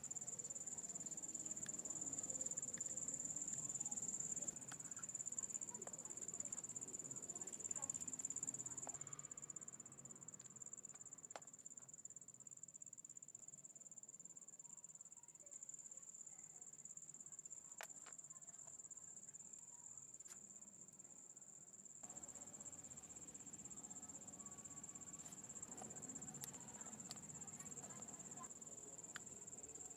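An insect trilling continuously at a high, steady pitch, with a few faint clicks and knocks.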